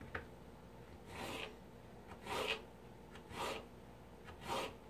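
Paring knife slicing strips from a raw potato on a plastic cutting board: four short cuts, about one a second.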